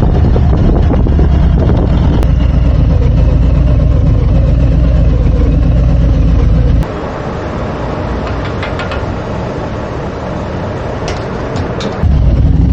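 Harley-Davidson V-twin engine running as the motorcycle rides, a loud steady low rumble. About seven seconds in the engine sound drops abruptly to a much quieter hiss for about five seconds, then comes back just as suddenly near the end.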